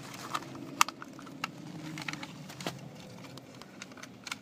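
A few light plastic clicks and taps as the small black plastic housing of a ride-on toy car's remote-control receiver module is handled and turned in the fingers.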